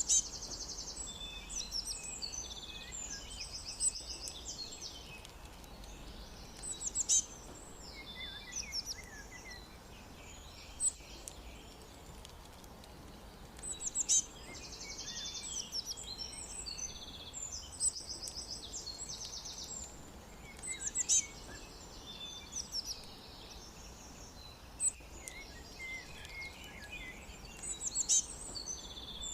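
Songbirds chirping and singing high-pitched trills and chirps in short bursts, with similar phrases coming back about every seven seconds.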